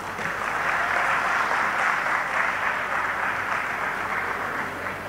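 Audience applauding in a hall. The clapping swells in just after the start and eases off toward the end.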